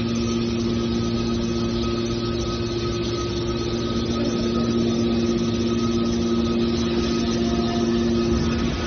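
Scrap metal baler machine running with a steady hum: a constant drone carrying two low tones and a fainter higher whine.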